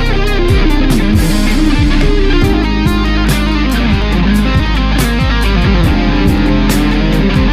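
Electric guitar played through a Line 6 Amplifi FX100 modeling effects unit, with notes sliding in pitch over a steady drum beat.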